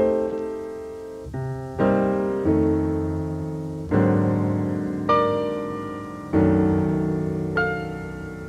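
Solo jazz piano playing slow chords, a new chord struck about every second and left to ring and fade before the next.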